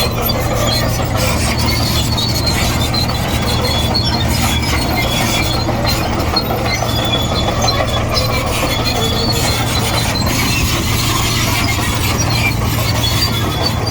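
Komatsu D58E crawler bulldozer's diesel engine running steadily under load, with short high squeaks and ticks from its steel tracks recurring throughout.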